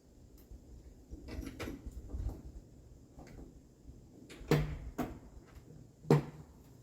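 Gator utility vehicle jolting over a rough woodland trail: several sharp knocks and clunks over a low rumble, the loudest two about four and a half and six seconds in.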